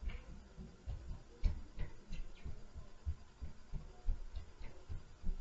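Footsteps stomping on the floor of the apartment upstairs, heard through the ceiling as a run of dull, low, irregular thuds, several a second, with a few faint higher clicks.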